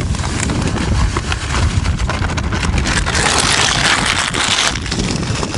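Wind rumbling on the microphone, with small clicks and handling noises. About three seconds in, a rustling hiss lasts for about a second and a half.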